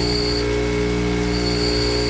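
Bench grinder running steadily while a small screw's head is ground down, a steady motor hum with a high whine that drops out about half a second in and returns near the end.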